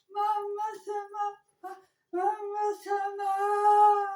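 A dog howling in a sing-song voice: several short yowls, then one long held howl from about halfway through.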